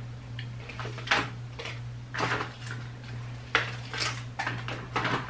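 Small hard makeup items and plastic packaging clicking and clattering in a string of short knocks as they are picked up and handled, over a steady low hum.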